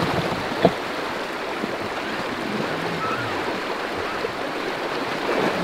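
Fast shallow river water rushing and splashing around a wader's legs as a loaded inflatable raft is pushed over a log, with one sharp knock about half a second in.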